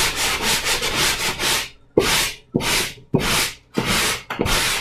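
Sanding sponge rubbed back and forth over dried joint compound on a wall: quick, close strokes at first, then about five slower, separate strokes over the last three seconds.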